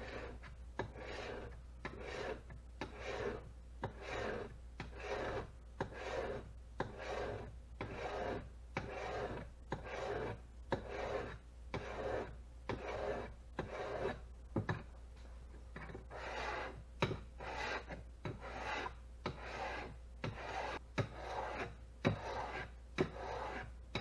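A wet 220-grit diamond sharpening stone is scrubbed back and forth along a Shopsmith jointer blade clamped in a wooden jig, making a rasping stroke about once a second with a sharp tap between some strokes. This is the coarse stage of sharpening, grinding metal off a dull blade edge.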